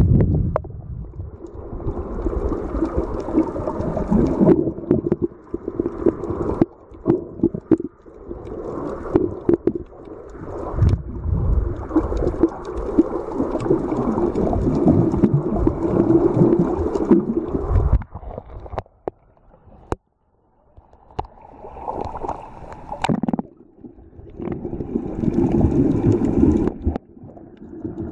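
Muffled underwater water noise heard through a camera held below the surface: uneven rushing and gurgling with scattered small clicks, dropping almost to silence for a couple of seconds about two-thirds of the way through.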